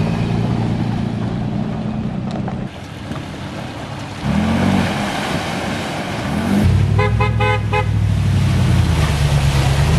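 Pickup truck engines running on a muddy dirt road, one revving briefly up and back down about four seconds in. About seven seconds in, a truck horn gives a quick string of about six short toots.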